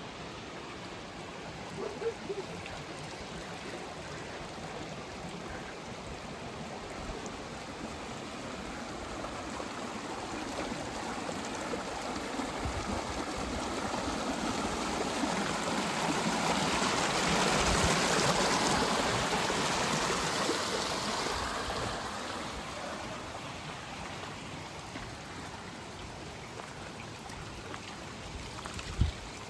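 Running water of a stream, a steady rushing that grows louder toward the middle and then fades again. A brief thump just before the end.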